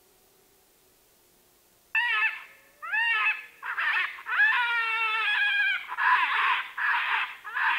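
Predator call sounding a distressed animal's cry to lure in wolves. After about two seconds of near silence, a loud run of high, rising squeals and wails begins and goes on in short, repeated bursts.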